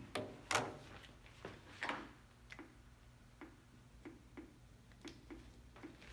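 Geiger counter clicking at irregular intervals, a little under two clicks a second, each click a detected beta particle from a strontium-90 source. A couple of louder knocks come in the first two seconds.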